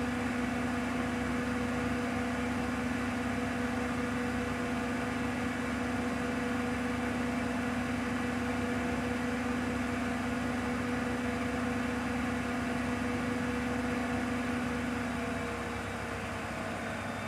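Bosch WAQ28470GB washing machine spinning its empty drum at 1400 rpm, a steady whine over a rushing hum. About two seconds before the end the pitch starts to fall and the sound drops as the drum begins to slow down.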